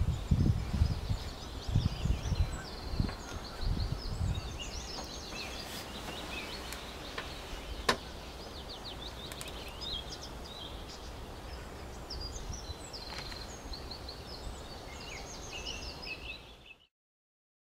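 Small birds singing and chirping, many short high trills and twitters overlapping throughout, with low wind rumble on the microphone in the first few seconds. The sound stops abruptly about a second before the end.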